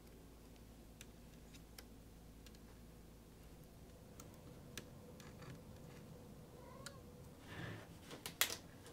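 Faint small clicks and taps of tweezers and plastic laptop parts being handled while a ribbon cable is worked loose. Near the end a short rustle and a louder cluster of clicks as the laptop body is picked up and handled.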